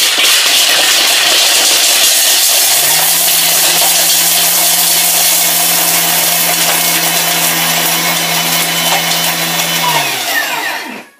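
Thermomix TM31 running at top speed (speed 10), its blade chopping pieces of chocolate in the mixing bowl: loud and steady for about ten seconds, then the motor winds down in pitch and stops near the end.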